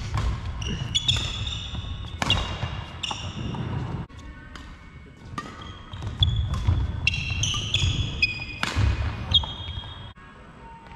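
Badminton players' court shoes squeaking and stamping on a wooden sports-hall floor during a rally, with sharp racket hits on the shuttlecock in between. It quiets down about ten seconds in.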